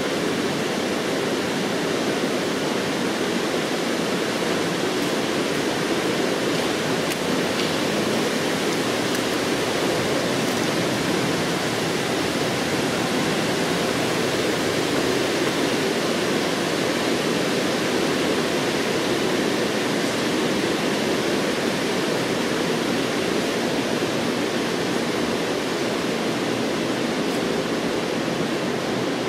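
Steady, even rush of running water, unchanging throughout.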